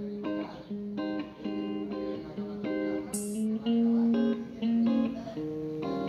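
Background music: a plucked guitar playing a melody of single notes, with a brief high hiss about three seconds in.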